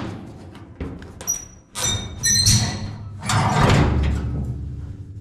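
Sheet-metal seed box lid of a 1970s Melroe grain seeder being handled: several metal clanks and a short high squeak, then a heavier thud about three and a half seconds in.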